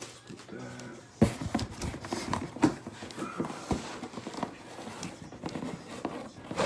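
Shipping packaging being handled and opened by hand: a run of irregular knocks and taps with some rustling.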